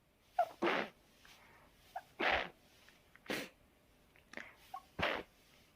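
A person sneezing four times in a row into a handkerchief, about one to one and a half seconds apart. Most of the sneezes open with a brief pitched catch of breath just before the burst.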